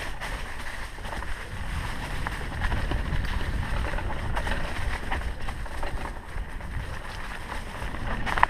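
Mountain bike riding over a leaf-covered dirt trail: wind rumbling on the camera microphone over tyre noise, with scattered clicks and rattles from the bike and a sharper knock near the end.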